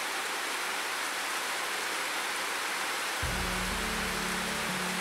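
Steady rain falling, an even hiss. About three seconds in, low background music with held bass notes comes in under it.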